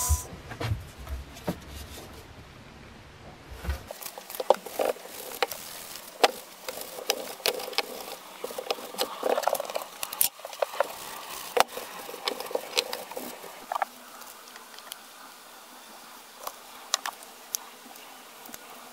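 Light clicks, taps and small knocks of a steel cleaver blade, brass plates and wooden handle scales being handled and set down on a workbench mat. A low hum underneath stops about four seconds in.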